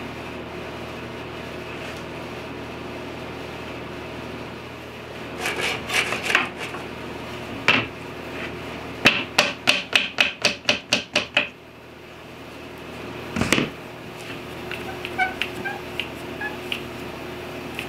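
Clamping a glued-up wooden face frame. A few sharp clicks are followed by a quick, even run of about ten clicks over two seconds as one-handed bar clamps are ratcheted tight, then a single louder knock and some faint small squeaks, over a steady shop hum.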